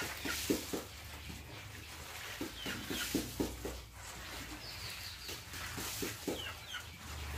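Domestic fowl clucking in short, irregularly repeated calls, with a few brief high chirps of small birds.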